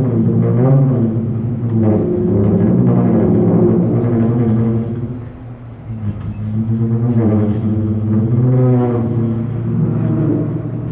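Drum feedback: drums driven by amplified feedback sing out sustained, wavering pitched tones over a low drone, swelling and fading in waves. The sound dips about five seconds in, where a brief high whistle sounds, then swells back.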